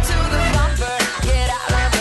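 Pop music: a singing voice over a heavy, pulsing bass beat.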